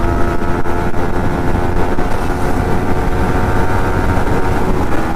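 Motorcycle engine running at a steady road speed, its pitch holding level, over a dense low rumble of wind and road noise.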